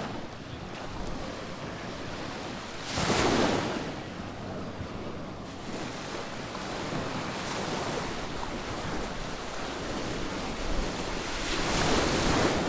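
Sea waves washing onto a sandy beach: a steady wash with two louder surges, one about three seconds in and one near the end, with wind buffeting the microphone.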